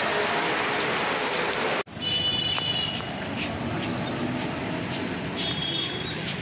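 Rain falling steadily on a street as a dense hiss. After an abrupt cut about two seconds in, lighter rain follows, with regular dripping ticks and a few faint high tones.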